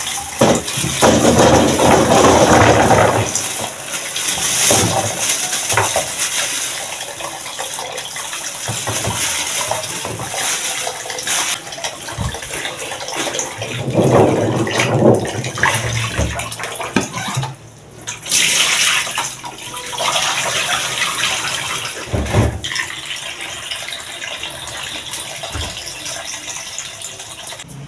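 Kitchen tap running into a plastic basin of oil palm fruits as they are rinsed and stirred by hand, the water splashing over the nuts. The splashing is louder in the first few seconds and again about halfway through.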